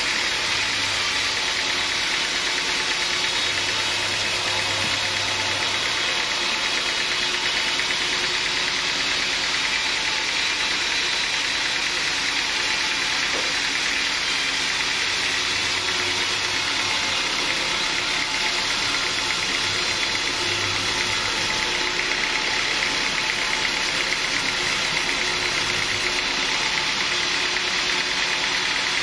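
Sawmill machinery running steadily: an even mechanical drone and rush that neither starts nor stops.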